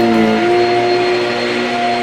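Shark Rocket corded stick vacuum running, a steady motor whine over rushing airflow. Its pitch dips and shifts briefly in the first half second, then holds steady.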